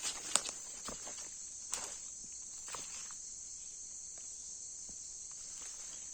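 Steady high-pitched chorus of insects, with a few sharp clicks and snaps in the first three seconds.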